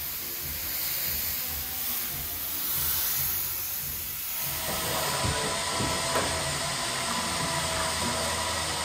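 Compressed-air spray gun hissing in a continuous spray. About halfway through, the hiss changes to a steadier rush with a faint whine over it.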